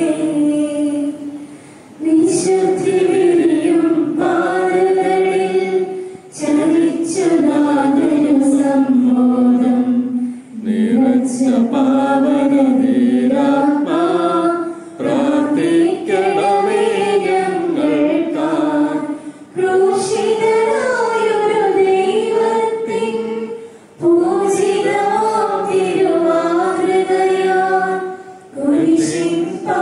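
A group of voices singing a slow hymn together, in phrases of about four to five seconds, each separated by a brief pause for breath.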